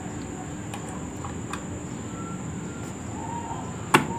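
Electric stand fan switched on for a test after a motor repair: a steady low hum, with one sharp click near the end as the fan is handled.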